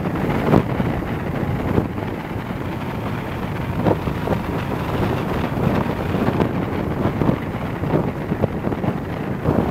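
Wind buffeting the microphone of a camera mounted on a moving car's roof, in irregular gusts over the steady rush of the car driving at expressway speed.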